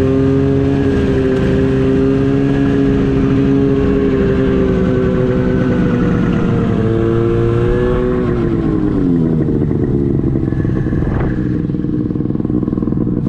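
Snowmobile engine running steadily under the rider, then the throttle is let off about eight seconds in and the revs fall away to a lower idle as the sled slows to a stop.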